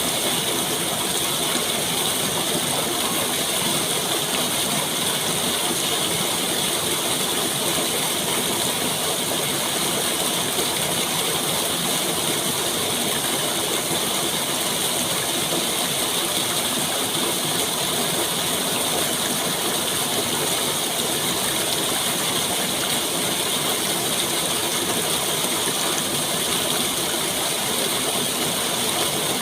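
Running water making a steady, dense rushing noise that stays even throughout, with a fine crackly texture.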